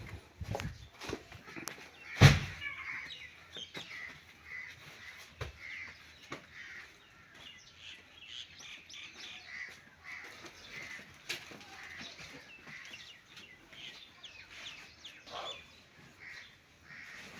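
Birds chirping with many short calls. A loud sharp knock comes about two seconds in.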